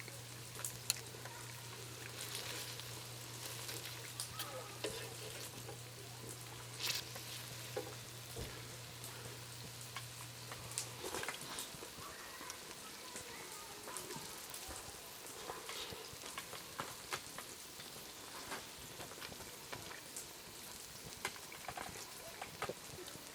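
Steady sizzling and crackling from camp fire cooking, dotted with many small irregular pops. A low steady hum runs underneath and stops about eleven seconds in.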